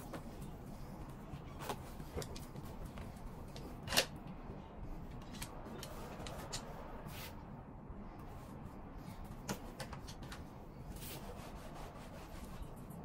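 Denim jeans being handled and rubbed, with scattered light clicks and one sharper click about four seconds in.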